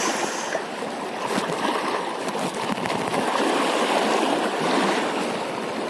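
Water rushing steadily, a continuous even wash with no distinct splashes.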